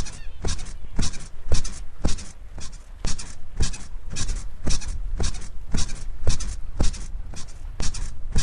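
Bed springs squeaking in a steady rhythm, about two squeaks a second, over a low steady rumble.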